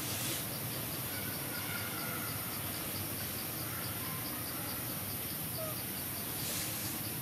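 Steady high-pitched drone of forest insects, with a faint pulsing chirp repeating about three times a second.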